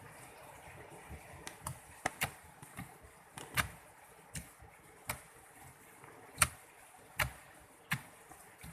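Slime being squeezed and worked by hand, giving a dozen or so irregular sharp pops and clicks, the loudest a little past the middle.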